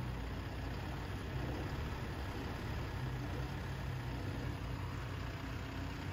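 Diesel engine of a JLG telehandler running steadily at low speed as the machine creeps forward, a constant low hum.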